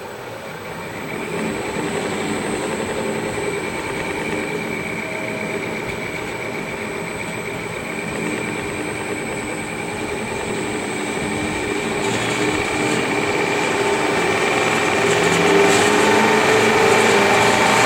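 Rong Fu RF 19V 20-inch drill press with a variable-speed inverter drive, running in reverse, growing gradually louder as the speed is turned up to just over 2,000 RPM.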